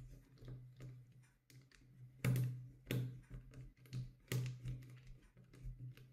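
Light, sharp clicks and taps of a small screwdriver on the screw of a clear glass-fibre polyamide airsoft midcap magazine as it is tightened and the plastic shell is handled: about half a dozen separate clicks, starting about two seconds in.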